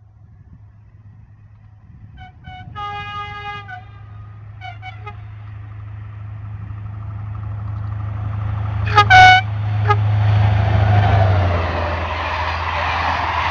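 A CC 72100 diesel locomotive hauling Corail coaches approaches and passes, its low engine drone growing louder. The horn sounds in a few short toots and a longer blast about two to five seconds in, then a very loud short blast as the locomotive passes, sounded by the driver as a greeting. The coaches' steady rolling noise on the rails follows.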